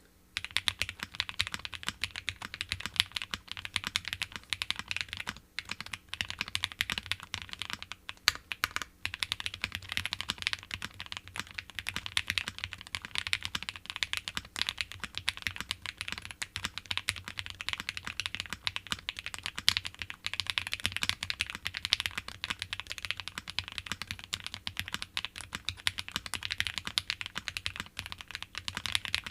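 Continuous fast typing on a Think6.5 v2 custom mechanical keyboard: a dense, steady stream of keystrokes starting about half a second in. The board is gasket-mounted with a PVC plate and plate foam, and has lubed, filmed Silk Yellow switches and GMK keycaps.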